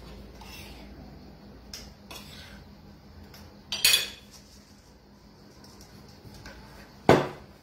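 Kitchen utensils knocking against a plastic mixing bowl as flour is sifted into dough: a few light clicks, then two sharp knocks, about four seconds and about seven seconds in, from the flour sieve and wooden spoon striking the bowl.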